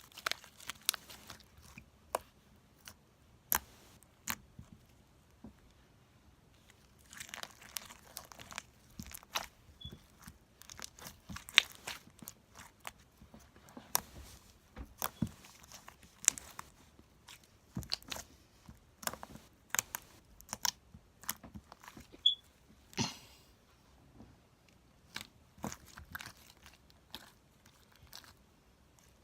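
Homemade slime being squeezed, poked and stretched by hand for ASMR: irregular sharp clicks and crackly pops, with a few longer squishes.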